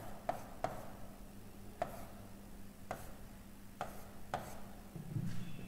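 Marker pen tapping and scraping on a writing board as short bond lines are drawn: several faint, sharp taps at irregular intervals.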